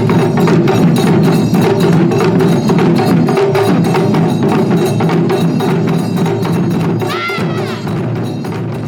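Percussion music, drums and wood-block strikes in a fast, steady rhythm, with a brief rising high note about seven seconds in. It fades out near the end.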